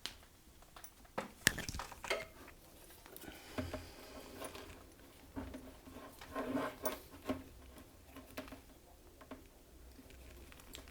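Handling of a Ganzo 2019S multitool with its awl out: a few sharp metal clicks in the first two seconds, the loudest about a second and a half in, then scraping and rubbing as the awl is worked into material.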